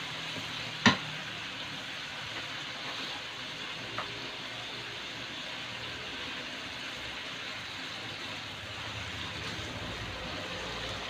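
Chicken adobo simmering in vinegar sauce in a metal wok, a steady hiss. A metal spatula strikes the wok once sharply about a second in, and lightly again about four seconds in.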